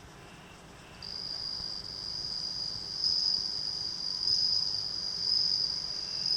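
Male bell cricket (suzumushi) singing: a steady, high ringing song that starts about a second in and grows louder around halfway through.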